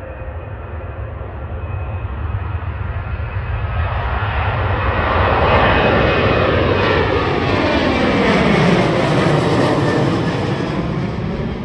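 Airliner passing close by. Its jet engine noise swells to a peak and then eases, with a falling sweep in pitch as it goes past. Steady wind rumble on the microphone runs underneath.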